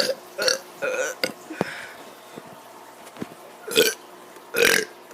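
A child burping in short bursts: three quick burps, a pause of about two seconds, then two more.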